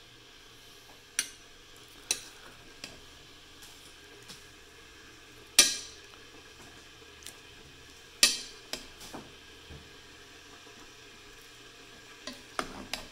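A metal utensil clinking and scraping against a cast-iron kazan while turning cooked plov rice. It gives scattered sharp clinks, the loudest about halfway through, another strong one about two-thirds in, and a quick cluster near the end.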